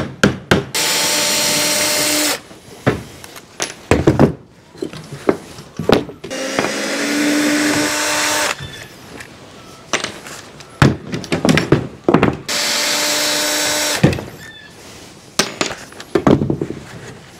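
Power drill running in three runs of one to two seconds each, as when driving screws, with sharp knocks and clatter in between.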